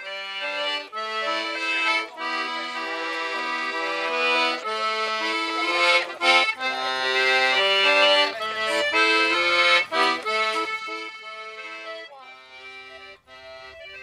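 Accordion music: a melody played over sustained chords, swelling in the middle and softening near the end.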